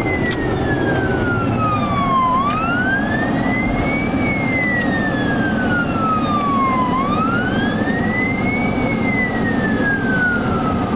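Emergency vehicle siren on a slow wail: the pitch climbs quickly, then falls slowly, about two and a half cycles, over a steady low rumble of road noise.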